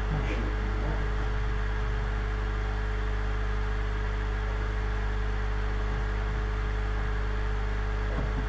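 A steady low hum with a few fixed higher tones, unchanging throughout: background hum in the recording during a pause in speech.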